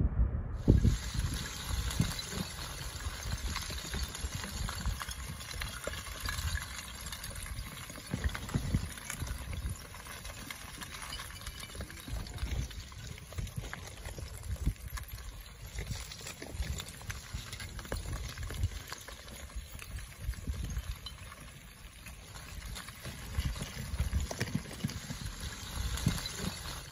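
Mauna Loa's erupting lava: a steady crackling hiss full of small pops, with gusts of low rumbling that swell about half a second in and again near the end.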